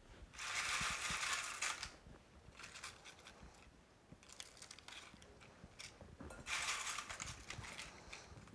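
Crisp fried tortilla pieces crackling and rustling as they are handled and laid by hand on a lentil casserole, with two longer, louder rustling spells, one near the start and one about two-thirds in, among short crackles.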